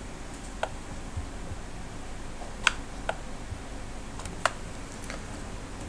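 About six short, sharp key clicks at irregular intervals over a steady faint hiss; the loudest come a little under 3 seconds and about 4.5 seconds in.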